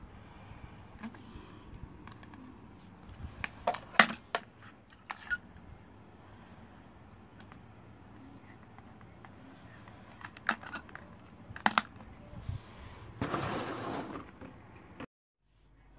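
Small clicks and taps of hands handling a hot glue gun, a glue stick and hard plastic toy parts, with a rustling scrape lasting about a second and a half near the end. The sound then cuts off suddenly.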